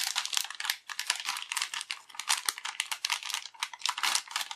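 Clear plastic parts bag crinkling and crackling as hands handle it and open it, in a dense run of small crackles.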